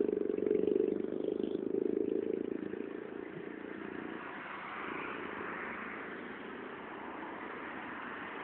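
Road traffic: a vehicle's engine is loud at first and fades away over about four seconds, followed by the tyre hiss of further vehicles swelling and fading.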